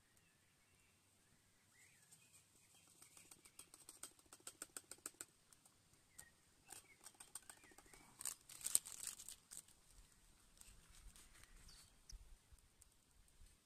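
Faint handling of small metal camp cookware: a quick run of light clicks, then a louder cluster of clinks and rustling about eight to nine seconds in, against near quiet.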